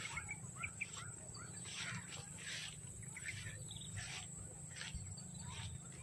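Footsteps and legs brushing through tall grass and scrub, a soft swish about once a second, with faint bird chirps in the first second.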